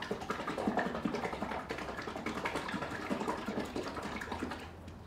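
Plastic bottle of blue underglaze shaken hard: the liquid sloshes and knocks inside in rapid, irregular strokes, stopping shortly before the end.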